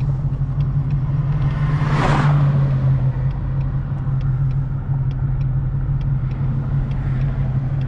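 Straight-piped 2018 Ford Mustang GT's 5.0 V8 cruising at steady speed, a constant low exhaust drone heard inside the cabin. A brief whoosh swells and fades about two seconds in.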